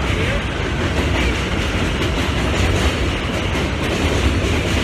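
Loud, steady rumbling noise, heaviest in the low end and unchanging throughout.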